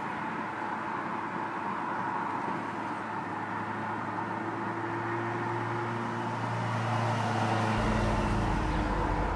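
Steady noise of a running vehicle with a low hum that grows louder in the second half; a deeper rumble comes in suddenly near the end.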